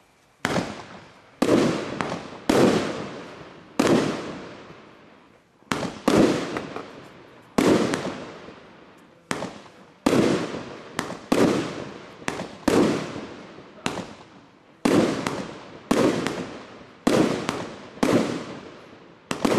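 Aerial firework shells bursting in quick succession: about twenty sharp bangs at irregular intervals, often one or two a second with a short lull early on, each trailing off in a rolling echo over about a second.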